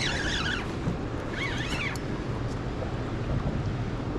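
Steady wind and river-water noise on an open boat, with wind buffeting the microphone. Twice, a short burst of wavering high-pitched whistling calls cuts through, once right at the start and again about a second and a half in.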